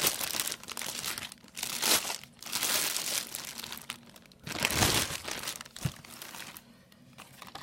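Plastic packaging crinkling and rustling in several bursts as a cordless stick vacuum's main unit is unpacked, dying away over the last second or so.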